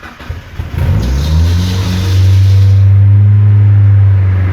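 NA Mazda Miata's four-cylinder engine being cranked by the starter and catching about a second in, revving up and then running steadily at a fast idle. It starts right up, with no clicking, now that the ignition switch has been cleaned and regreased.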